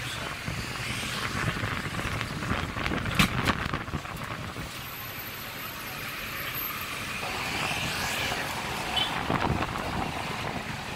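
Steady running noise of a sightseeing bus and the traffic around it, with wind buffeting the microphone. A sharp click comes about three seconds in.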